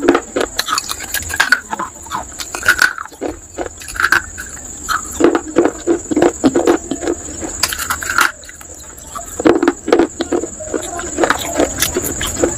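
Pieces of a fired clay cup (kulhad) being bitten and chewed close to the microphone: a run of sharp crackling crunches, with denser bouts of chewing about five and ten seconds in.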